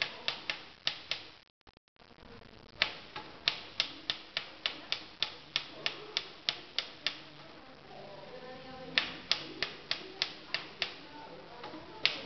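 Typewriter keys being struck one after another, sharp separate clacks about three or four a second. The typing stops briefly about a second and a half in and again near two-thirds of the way through, then picks up.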